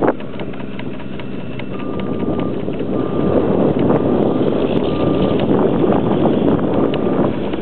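Wind buffeting the camcorder microphone: a steady low rushing noise that swells slightly about halfway through.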